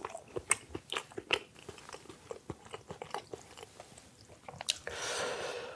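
Close-miked chewing with the mouth closed: a run of small, wet clicks and smacks. Near the end comes a longer rustling noise lasting about a second.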